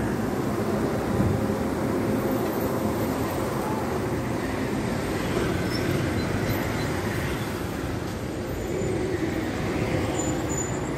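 Steady city street traffic: cars passing on a busy road, a continuous rumble with no break.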